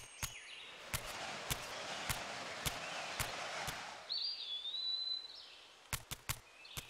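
Jungle ambience: a soft rustling hiss over the first few seconds, scattered sharp clicks, and a single whistled bird call about four seconds in, lasting about a second with a small dip in pitch.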